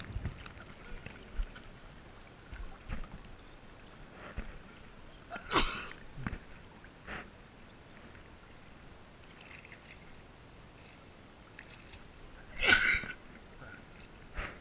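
Pool water lapping and sloshing against a GoPro's waterproof housing as it floats at the surface, with two louder splashes about six and thirteen seconds in.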